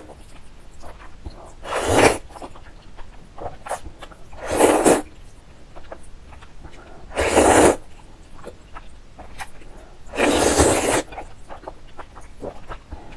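Noodles being slurped loudly four times, roughly every three seconds, with soft chewing and mouth clicks in between.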